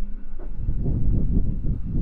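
Low, rough rustling rub directly against the microphone, starting about half a second in and continuing.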